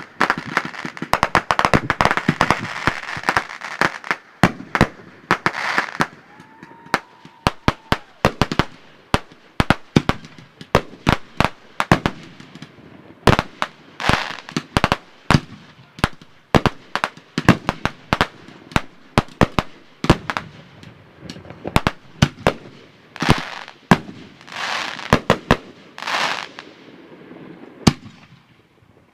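A rapid barrage of consumer aerial fireworks fired from racks of fuse-linked tubes: many sharp bangs of launches and bursts in quick succession, with crackling shells, thinning out near the end.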